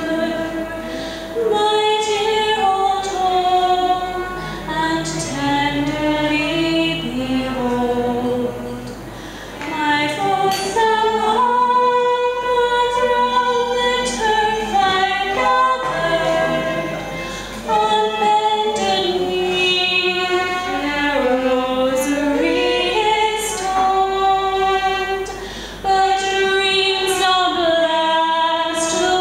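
A woman singing a slow ballad, holding long notes and stepping between them, with short breaths between phrases.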